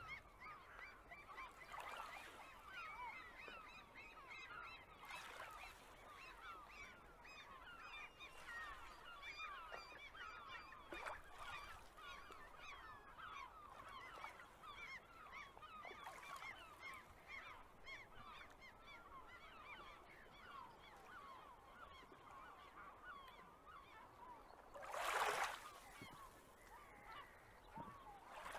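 Faint, dense calling of a flock of birds, many short chirping calls overlapping throughout. About 25 seconds in, a brief rushing whoosh rises over it and fades.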